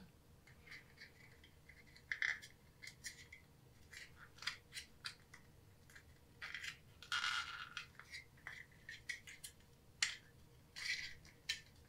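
Faint handling noises as a grommet is worked into the hole in the bottom of a small plastic project box: scattered light clicks and scrapes of plastic, with a longer scrape about seven seconds in.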